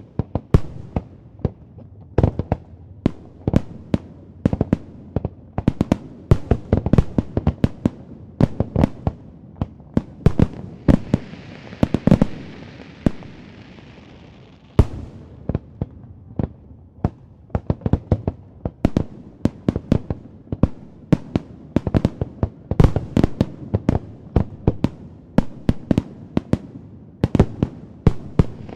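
Fireworks display: a dense, uneven barrage of sharp bangs and booms, several a second, with a stretch of high hiss from about eleven to fifteen seconds in.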